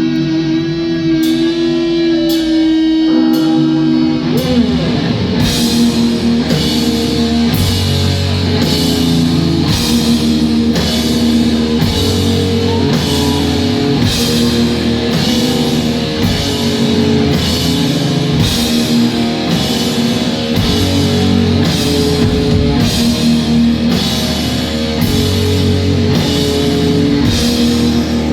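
A heavy metal band playing live: distorted electric guitar holds ringing notes, slides down, and then the full band comes in with bass and a steady, driving drum beat.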